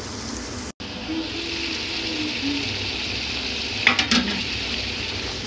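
Beef liver and onions sizzling steadily in a metal pot, the sound cutting out for an instant under a second in. Near the end come two or three sharp knocks, typical of a wooden spoon striking the pot.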